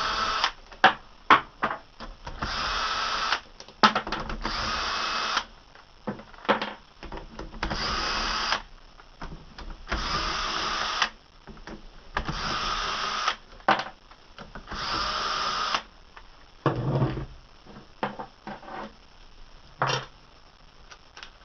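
Power drill spinning out the seven bolts of a small engine's side cover, seven runs of about a second each. Short clicks and metal clatter come between the runs as the bolts come free and are set down, with a few dull knocks near the end.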